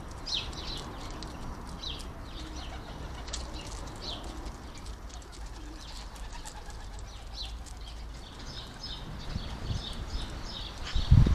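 Wild garden birds calling: many short, high chirps scattered throughout, over a steady low rumble, with loud low thumps near the end.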